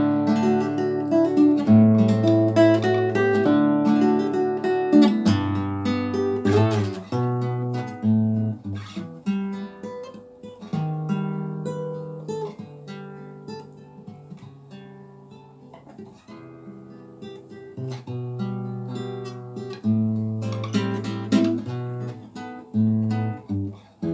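Solo acoustic guitar playing a melody, plucked and strummed notes over bass notes; the playing softens for several seconds midway and grows louder again near the end.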